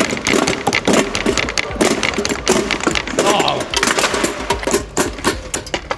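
Ice blocks being bashed and chipped against desktops and small bench vises to break keys out, a fast, continuous clatter of hard knocks.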